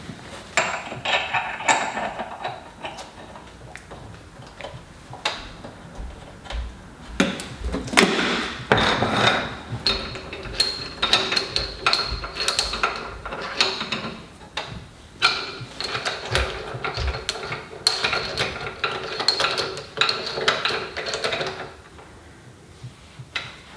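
Hand tools working the vise's metal mounting bolts: quick runs of metallic clicking and clinking with a ringing tone, in two long spells, with scattered knocks before them.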